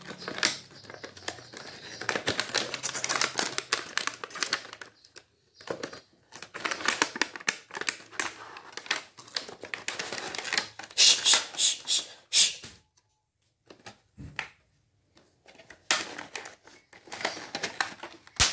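Cardboard box and paper inserts being handled and opened, a crackly rustling that comes in several bursts with short pauses. The sharpest, loudest crackles come a little past the middle.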